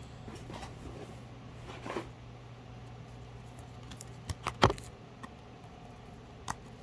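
Pokémon trading cards and a foil booster pack being handled: soft rustles and a few sharp clicks, the loudest cluster about four and a half seconds in, over a steady low hum.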